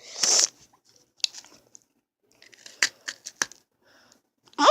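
Eating a frosted lemon cookie: a short rustle at the start, then a few sharp, scattered crunches and clicks.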